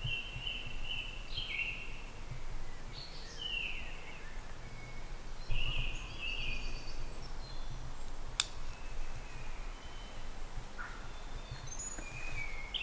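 Woodland birds singing: short whistled phrases every second or two over a low steady rumble, with one sharp click about eight seconds in.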